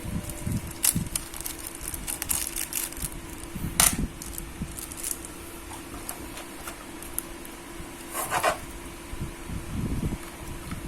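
Scattered small clicks, taps and knocks of a laptop hard drive, drive caddy, screwdriver and screws being handled on a work surface, with a sharper knock about four seconds in and a brief clatter near eight seconds, over a faint steady hum.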